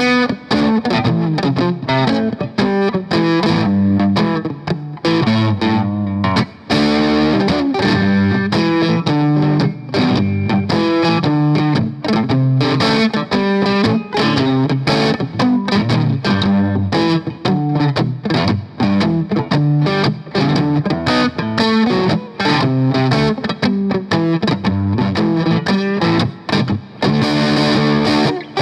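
Electric guitar played through a Boss Blues Driver BD-2 overdrive pedal: a quick, continuous run of driven notes, with a brief break about six seconds in.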